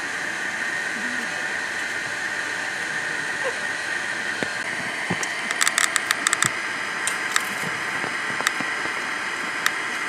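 Steady high-pitched hissing drone of outdoor ambience. About halfway through comes a quick run of sharp clicks, then a few single clicks spaced out near the end.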